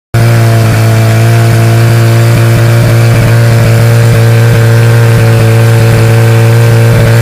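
Portable engine-driven fire pump running loud and steady at one constant speed, pumping water into the fire hoses.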